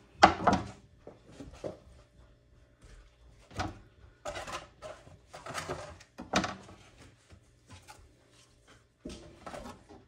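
Kitchen prep sounds of a knife and raw chicken on a cutting board: irregular knocks and scrapes, the loudest knock right at the start.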